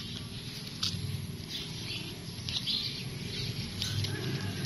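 Dry grass stalks rustling and crackling in scattered short bursts as a hand reaches in among them, over a low rumble.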